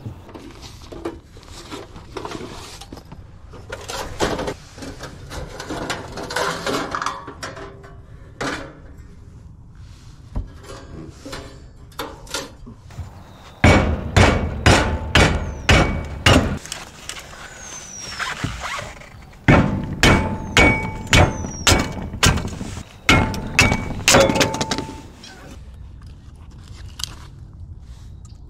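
Two runs of repeated hard blows at about three a second, like hammering, each blow leaving a faint metallic ring, after lighter scattered knocks and clatter.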